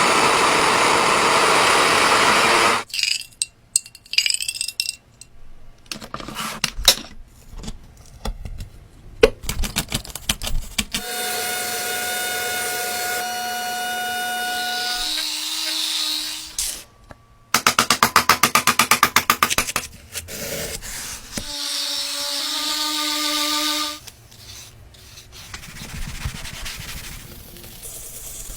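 A string of short workshop and tool sounds that cut abruptly from one to the next: a noisy rush, scattered knocks and clicks, a steady motor whine, and a fast run of rapid clicks.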